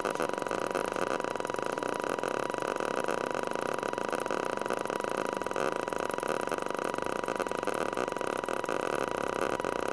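Steady electronic drone from audio oscillators: a dense, grainy buzz with one constant high tone sitting in it.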